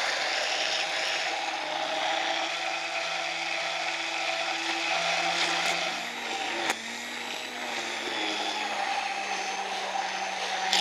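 Hand-held immersion (stick) blender running steadily in a tall glass beaker, emulsifying egg yolks, oil, mustard and basil leaves into a basil mayonnaise. Its motor note shifts slightly in pitch a couple of times, with one sharp click about two-thirds of the way through.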